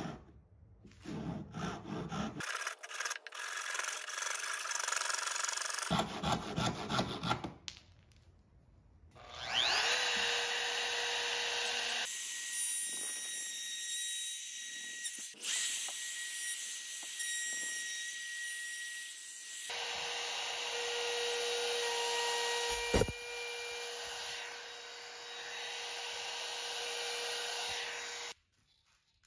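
A Japanese pull saw cutting a red oak board in quick rasping strokes. About ten seconds in, a wood router spins up with a rising whine and runs loudly as it cuts the oak, with a sharp click partway through, then cuts off suddenly near the end.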